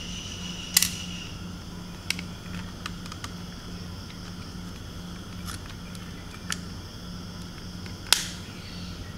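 Scattered sharp plastic clicks and snaps as the back housing of a rearview-mirror dash camera is lifted and prised away from its front shell, about half a dozen of them, the loudest about eight seconds in.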